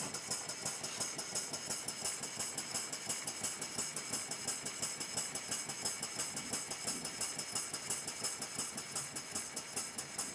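Single-cylinder model steam drilling engine (PM Research 1/8-scale kit) running fast, its exhaust beating out a rapid, even rhythm with light mechanical clatter.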